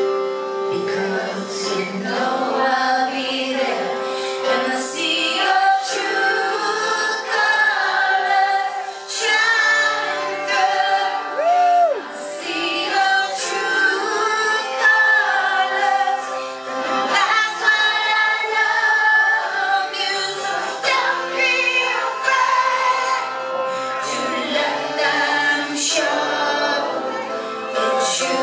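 A woman singing a pop song live with band accompaniment, in a concert-hall recording.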